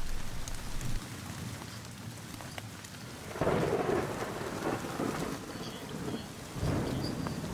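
Rain and thunderstorm sound effect: steady rain, with two rolls of thunder swelling up about three seconds in and again near the end.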